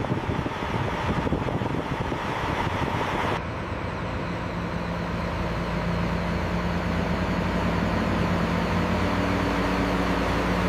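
Giant mining truck's engine running. About a third of the way in, the sound changes abruptly to a lower, steadier hum.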